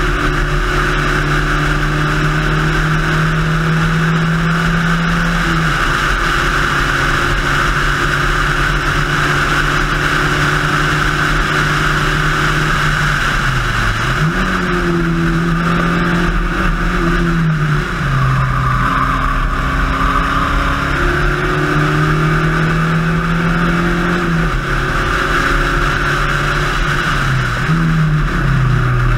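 Spec Racer Ford's four-cylinder engine running hard in a race, over loud wind and road noise. Its pitch holds for several seconds at a time, then drops or dips and climbs again about five times as gears are changed.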